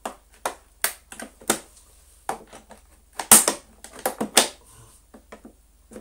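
Plastic body of a Miele C3 canister vacuum clicking and creaking in an irregular string of sharp clicks and knocks as its shell is pried and worked apart by hand. The loudest clicks come about three and a half and four and a half seconds in.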